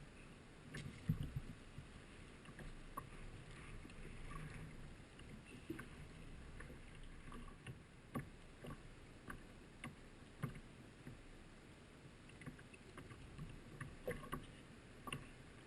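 Kayak on the water: faint wash of water and wind with scattered light knocks and clicks at irregular intervals, the loudest about a second in.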